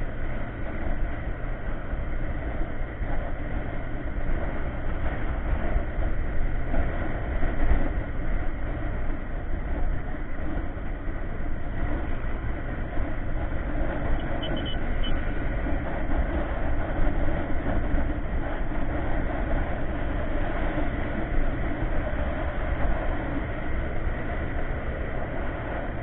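Steady rush of wind and road noise from a Yamaha Mio MX125 scooter riding at speed, with the scooter's engine running underneath.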